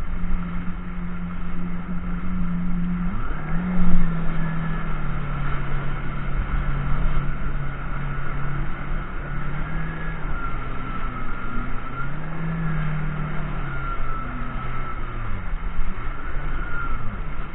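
Jet ski engine running under way over choppy water. Its pitch drops as the throttle eases about three seconds in, then rises and falls repeatedly with the throttle, over a steady rush of wind and water, with a short thump near four seconds.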